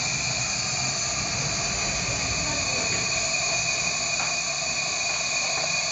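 Toitu CR-201 cryotherapy probe hissing steadily as compressed gas rushes through it, with a steady high-pitched whistle in the hiss. The gas is chilling the probe tip in a cup of water, freezing the water around the tip.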